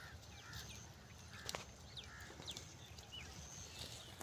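Faint field ambience while goats browse dry cotton plants: a few sharp clicks and snaps, the clearest about a second and a half in, with scattered short bird chirps over a low rumble.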